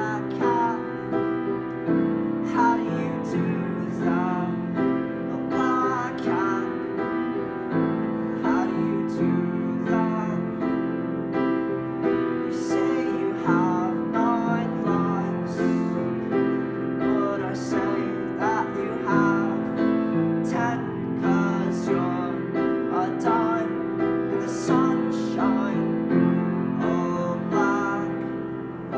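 Piano playing an original song: full chords sustained and repeated at a steady pulse, with a melody moving above them.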